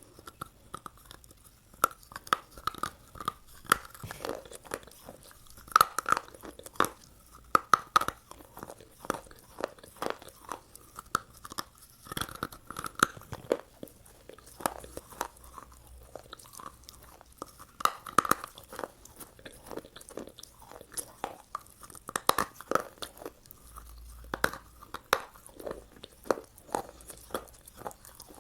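Close-miked chewing of McDonald's fast food, ASMR-style, with many sharp, irregular crunches and bites.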